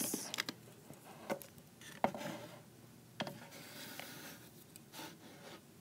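Plastic Littlest Pet Shop toy figures handled on a wooden table: several light taps and knocks, with soft rubbing in between.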